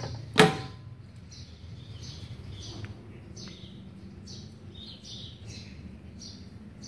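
The sheet-metal side cover of a Multipro 160 A inverter MIG welder is snapped shut with one sharp metallic clack, about half a second in. After it, short high chirps repeat about every half second over a faint background.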